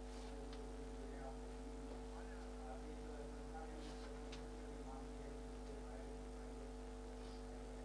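Steady electrical mains hum, with a faint voice talking off-microphone.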